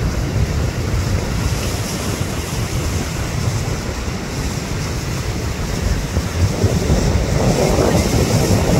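Wind buffeting the microphone over the steady wash of sea surf breaking against rocks.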